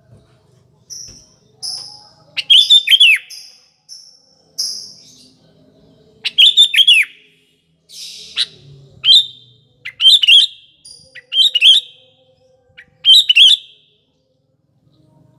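Sooty-headed bulbul (kutilang) singing loudly, about nine short bursts of quick, bending whistled notes with brief gaps between them. The song stops about two seconds before the end.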